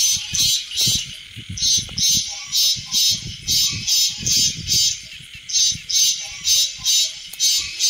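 Recorded giant water bug (Lethocerus indicus) lure call played back: a rhythmic, high-pitched pulsed chirping, about two to three chirps a second with short breaks, used to draw the bugs in.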